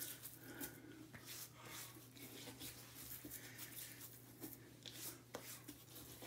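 Faint scratchy rustling of hands rubbing water over about three days of beard stubble, in short irregular strokes, over a low steady hum.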